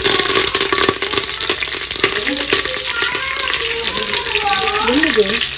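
Curry leaves and mustard seeds crackling and sizzling in hot oil, a dense hiss full of fine pops: the tempering (tadka) for a curry.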